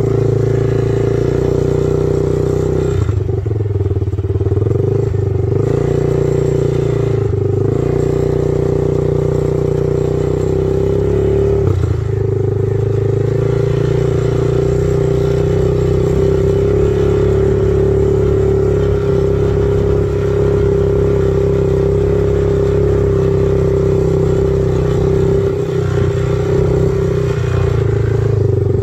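ATV (quad bike) engine running under way, heard from on board, a steady drone whose pitch dips briefly a few times in the first dozen seconds as the throttle eases off and opens again.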